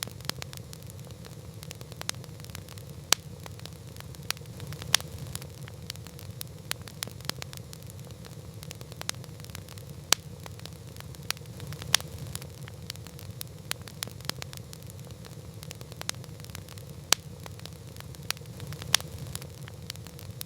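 A wood campfire crackling: irregular sharp pops and snaps, several louder than the rest, over a steady low rumble of the burning fire.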